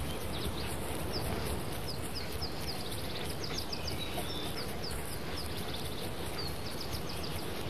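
Outdoor ambience with a steady hiss, dotted with many short, high, falling bird chirps.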